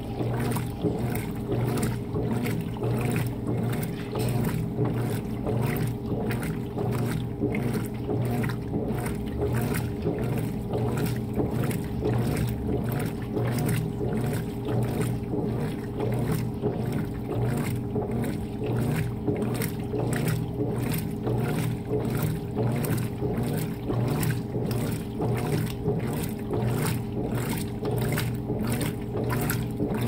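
Consul 16 kg top-load washing machine in its wash-agitation cycle: the motor hums steadily while the central agitator churns a sudsy load, the water and clothes swishing in a regular rhythm about twice a second.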